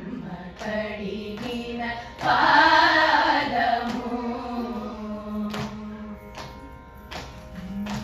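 A women's group singing Carnatic vocal music together, swelling loudest about two seconds in, over a steady drone. In the second half soft beats fall at an even pace, a little under once a second.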